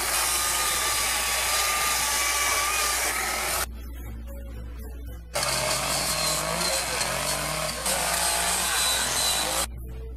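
Small chainsaw running at full throttle, carving into a wooden sculpture. After a short quieter break, an angle grinder with a disc runs against wood, grinding and shaping it.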